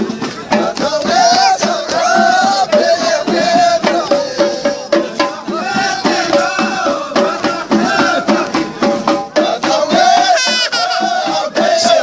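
Folk music: singing over fast, dense percussion.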